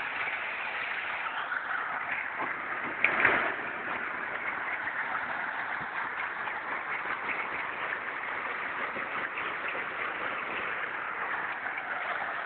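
Hailstones falling and hitting hard surfaces: a dense, steady clatter of many small impacts, with one louder knock about three seconds in.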